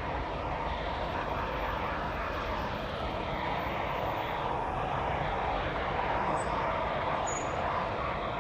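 Jet aircraft passing high overhead: a steady, even rumble that swells slightly past the middle.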